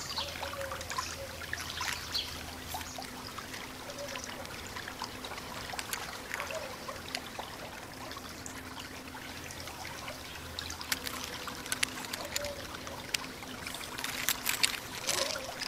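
Jointed segments of a 3D-printed PLA articulated dragon clicking and rattling against each other as it is flexed in the hands: a continuous patter of small plastic clicks, growing denser and louder near the end.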